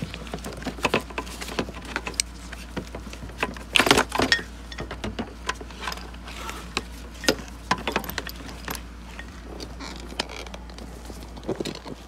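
Irregular clicks, knocks and rattles as a Mazda Miata's plastic interior trim panel is handled and fitted back into place. The busiest cluster comes about four seconds in.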